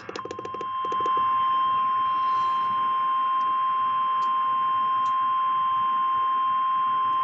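NOAA Weather Radio warning alarm tone: a single steady beep of about 1050 Hz held unbroken, the attention signal that comes before a National Weather Service alert for a tornado watch. A few rapid clicks come at the start as the tone comes in.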